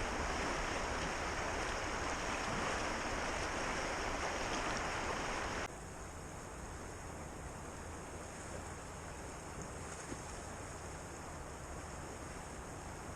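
Whitewater rushing steadily. About five and a half seconds in it drops abruptly to a quieter, duller rush.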